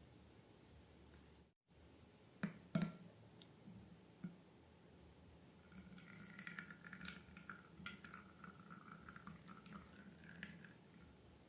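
Faint, wet squishing and crackling of slime being handled. Two sharp clicks come early, and from about halfway through there is a busier run of small sticky pops and clicks.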